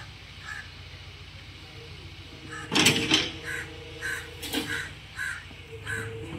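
Crows cawing repeatedly, short calls spaced about every half second to a second, with two louder, harsher bursts about three seconds in and again about a second and a half later.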